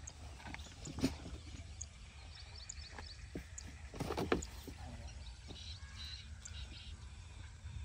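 Stationary diesel engine of a farm water pumpset running with a low, steady thudding, with a couple of louder knocks about a second in and around four seconds in. Birds chirp faintly over it.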